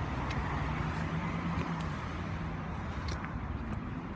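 Outdoor background noise with a faint steady low hum of a distant vehicle engine and a few light clicks.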